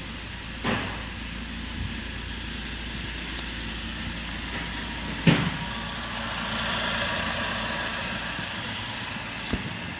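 2016 LDV G10's 2.0-litre turbocharged four-cylinder petrol engine idling steadily, running on test, louder in the second half. A few short knocks sound over it, the loudest about five seconds in.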